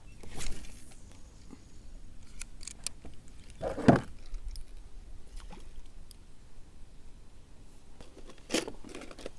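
Scattered light clicks and rattles of fishing gear handled in a kayak, with one louder knock about four seconds in and another near the end.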